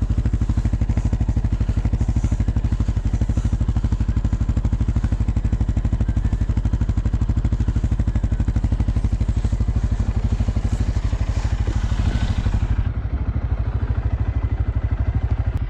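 CFMoto CForce 600 ATV's single-cylinder engine running with a steady, even pulse, swelling louder for a moment about twelve seconds in.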